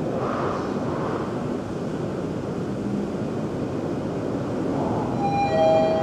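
Steady rumble of road traffic. About five seconds in, a brief two-note tone steps down from a higher pitch to a lower one.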